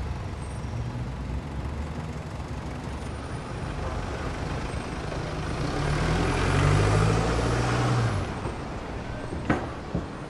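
A London black cab drives past over steady street traffic noise, its engine growing louder toward the middle and then fading away. A sharp click near the end.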